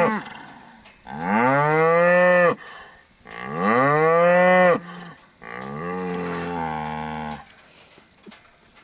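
Angus beef cows mooing: a call ending just as it begins, then two loud drawn-out moos that rise and fall, and a lower, quieter moo a little past halfway. The herd is calling because it wants to be moved to fresh pasture, as the farmer reads it.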